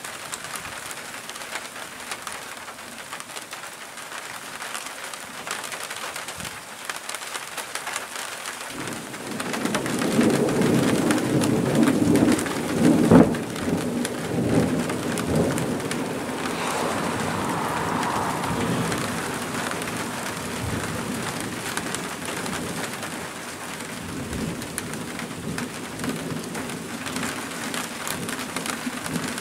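Steady rain falling, then about nine seconds in a long roll of thunder sets in. It is loudest with a sharp crack near the middle and rumbles away over the following several seconds.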